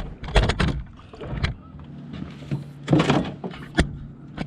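Several sharp knocks and clatters of gear being handled in a fishing boat, with a short scuffling burst about three seconds in, over a steady low hum.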